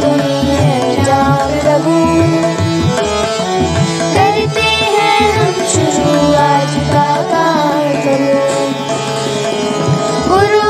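Hindi devotional prayer song: children's voices singing over a melodic instrumental backing and a steady hand-drum beat.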